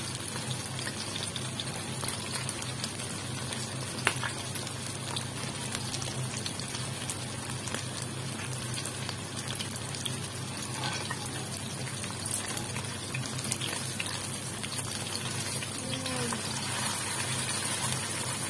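Chicken livers sizzling in hot oil in a stainless steel wok: a steady frying hiss with scattered small pops and crackles, over a steady low hum.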